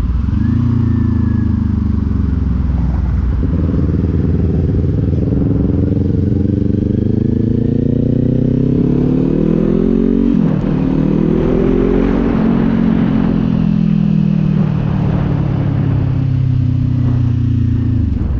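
Kawasaki Z400's parallel-twin engine under way. Its pitch climbs steadily as the bike accelerates, drops sharply with an upshift about ten seconds in, climbs briefly again, then falls slowly as the rider eases off.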